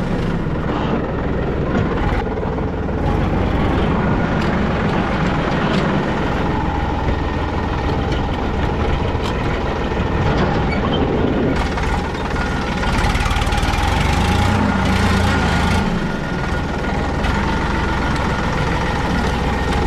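Diesel tractor engine running steadily while the tractor is driven, heard from the driver's seat.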